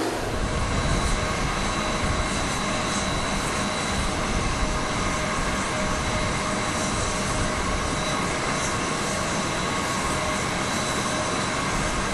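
Jet aircraft engines running steadily: an even rush of noise with a steady whine of several held tones.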